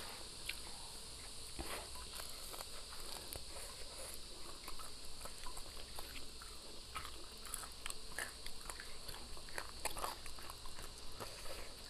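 Close-up biting and chewing of a crispy deep-fried chicken drumstick: irregular small crunches and crackles of the fried coating, scattered throughout.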